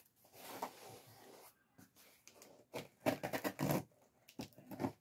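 Rustling and scraping as objects are handled on a desk. The sound comes as short scrapes and clicks, with a denser run of them about three seconds in.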